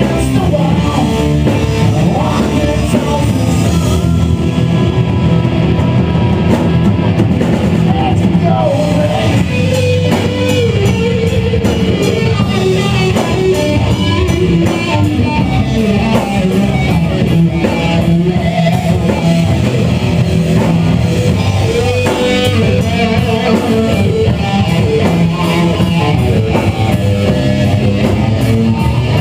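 Live rock band playing loud: electric guitar over bass and drum kit.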